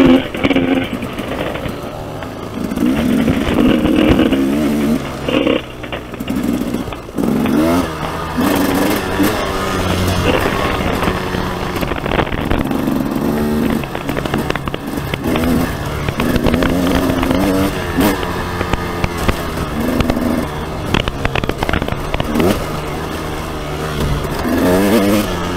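KTM dirt bike engine running under load on a trail ride, its pitch rising and falling again and again as the throttle is worked and gears change.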